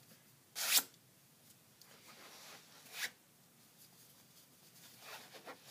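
Fabric rustling and scraping as baby socks are handled and pulled onto a reborn doll, with two louder swishes, about half a second in and at about three seconds, and softer rustles between.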